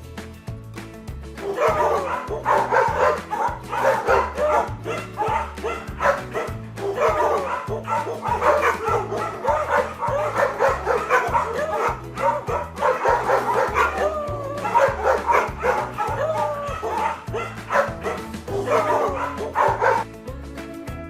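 Dogs yipping and barking in a rapid run of short, high calls, stopping about a second before the end. A steady beat of background music plays underneath.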